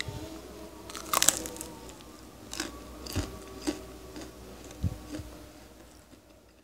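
Crisp deep-fried martabak telur pastry crackling and crunching as it is broken open by hand: a cluster of crunches about a second in, then a few single crunches spread over the next few seconds.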